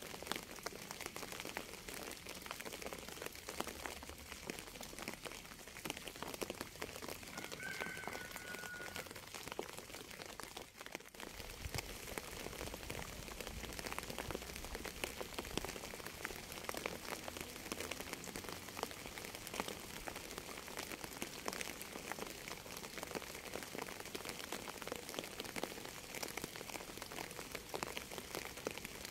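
Steady rain: a dense patter of drops striking a surface, with a brief dip in level about eleven seconds in.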